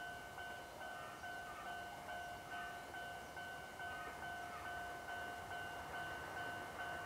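Railway level-crossing alarm ringing faintly, a two-tone chime repeating a little over twice a second: the warning that a train is approaching.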